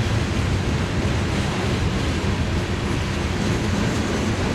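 Loaded trash cars of a Norfolk Southern freight train rolling past steadily, steel wheels on the rails.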